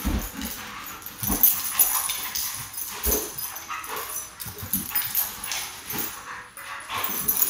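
Two dogs, a Weimaraner and a small dog, play-fighting on a couch: short dog vocalisations over irregular thumps and scuffling.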